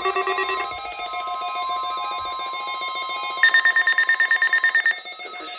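NOAA Weather Radio warning alarm during the weekly test: a steady high tone sounding through several weather radio receivers, mixed with the receivers' own beeping alert sirens. About three and a half seconds in, a shrill fast beeping of about nine beeps a second joins for a second and a half. Then the alarm stops.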